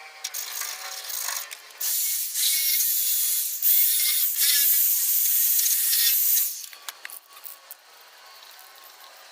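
Aerosol spray paint can hissing in long sprays over rust-treated metal, with a brief break in the middle, after some rattling and handling noise.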